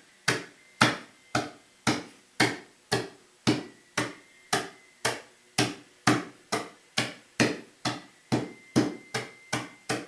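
A hammer pounding pasta in repeated sharp blows, about two a second, quickening slightly near the end.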